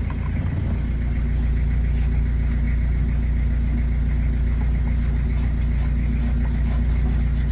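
A fishing boat's engine running steadily at low revs, a deep even hum.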